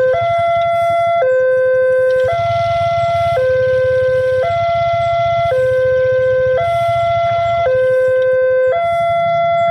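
Railway level-crossing warning alarm: an electronic two-tone signal switching between a higher and a lower tone about once a second. A steady low rumble runs underneath and grows stronger about two seconds in.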